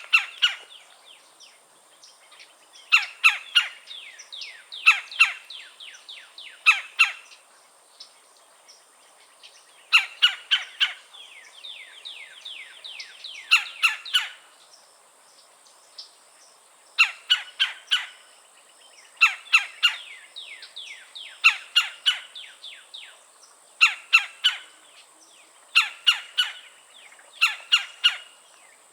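Red-bellied woodpecker giving its "cha-cha-cha" calls: short runs of quick, downward-slurred notes, repeated in bouts every second or two with brief pauses between.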